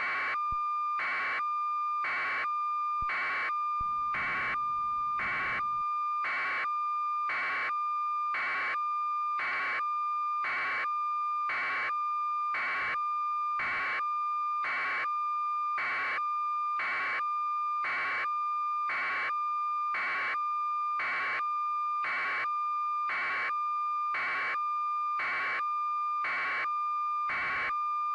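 Steady electronic beeping: one high-pitched tone pulsing evenly, about three beeps every two seconds, over a continuous fainter tone at the same pitch.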